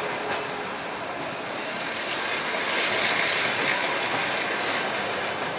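Passenger train carriages rolling past close by, with a steady rattle and clatter of wheels on the rails.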